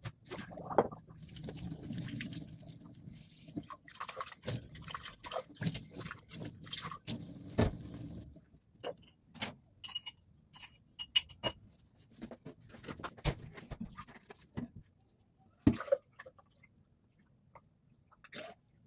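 Water running and splashing in a stainless-steel kitchen sink as a glass flower vase is emptied and rinsed, stopping about eight seconds in. After that, the glass vase clinks and knocks against the sink and countertop, with a few short ringing taps.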